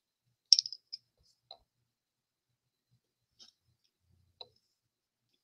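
Clicks and light knocks of a clear acrylic stamping block, with a raccoon stamp mounted on it, being handled and pressed down onto paper. A quick cluster of sharp clicks about half a second in is the loudest, followed by a few soft single taps.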